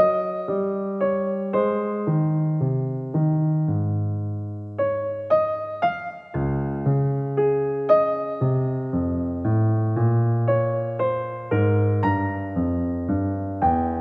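Background music: a gentle solo piano melody, notes struck one after another over low sustained bass notes.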